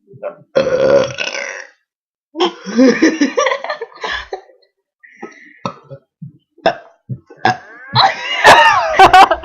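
A girl burping loudly: two long burps in the first four seconds, and a louder one with a wavering pitch near the end, with short scattered sounds and a few sharp clicks in between.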